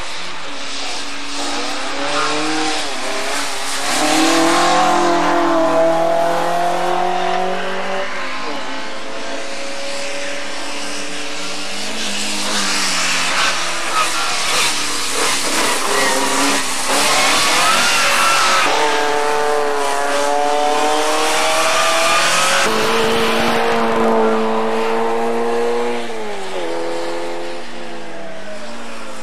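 Rally car engines revving hard on a tarmac stage: the engine note repeatedly climbs and drops back through gear changes and braking, with a hiss of tyres on the wet surface.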